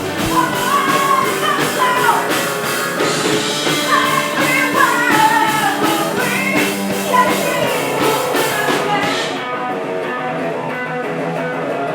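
A rock song: a singing voice over electric guitar and a steady drum beat. About nine seconds in, the high end drops away and the music goes on fuller and softer.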